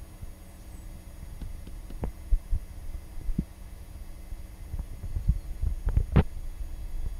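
Irregular low thumps and rumble on the microphone, with a few sharper knocks, the loudest about six seconds in.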